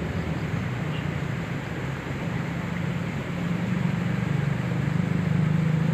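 Low, steady engine hum of motor traffic crossing the bridge overhead, growing louder in the second half as a vehicle comes closer.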